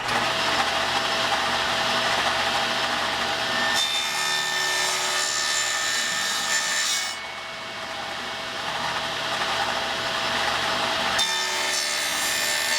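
Table saw running, its blade cutting a tenon into the end of a wooden panel. A steady motor hum runs throughout, with two louder stretches of the blade biting into the wood: about four seconds in for three seconds, and again near the end.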